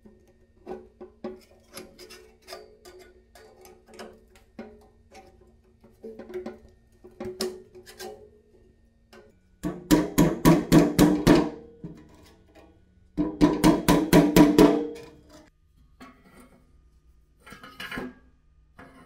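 A hammer striking a flat steel bar to fold the edge of a sheet-steel strip clamped over a steel block, the metal ringing with each blow. Scattered taps and clinks give way to two quick runs of hard blows, about six a second, in the middle, with a few more taps near the end.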